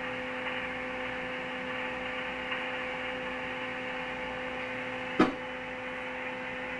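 Two-way radio's loudspeaker hissing with static between transmissions, over a steady hum. A single sharp click about five seconds in.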